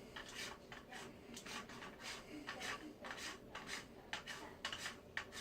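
Faint, irregular scraping and rubbing of plastic toilet tank parts being handled as a small plastic nut is unscrewed by hand.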